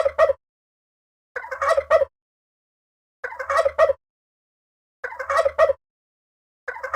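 Turkey calling: the same short call of several quick notes, repeated about every two seconds with silence between.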